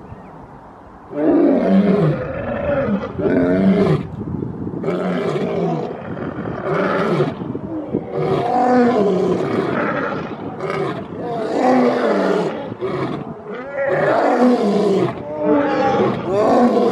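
Two male lions roaring together in a long bout, one roar after another with short breaks between them, starting about a second in.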